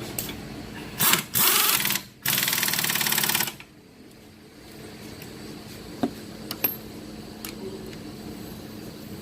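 Impact wrench hammering in three bursts, the last and longest about a second and a half, as it runs the 21 mm strut bolts in. A few light clicks follow.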